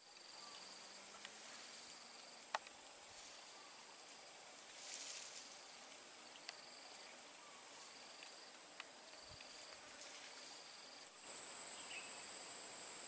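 Steady high-pitched buzzing of insects, with a second, lower insect call trilling on and off over it. A brief rustle about five seconds in and a few faint clicks.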